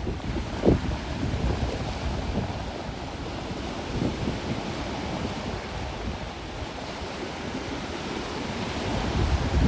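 Waves washing onto a gravelly beach, with wind buffeting the microphone in uneven gusts and a sharp wind thump under a second in.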